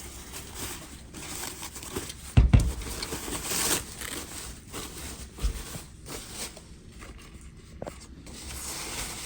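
Packing material rustling and crumpling as a shipping box is unpacked, with one heavy thump about two and a half seconds in.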